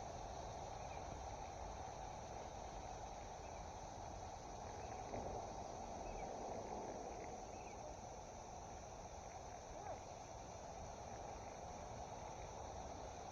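Faint, steady chorus of insects, a constant high buzz over a low, even background hiss, with a few tiny ticks.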